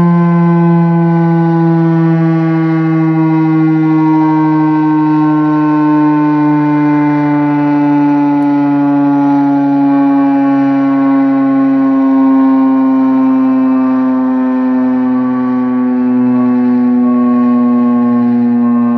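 Federal Signal STH10 single-tone electromechanical civil defense siren sounding during a test: a loud, steady tone with many overtones, its pitch sliding slowly and steadily lower.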